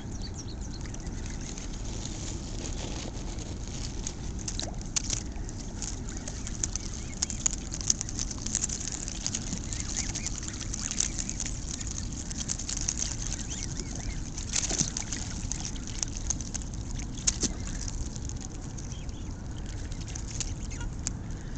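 A flock of Canada geese feeding and jostling in shallow water at a rocky shore: many short splashing and pecking clicks over a steady low rumble.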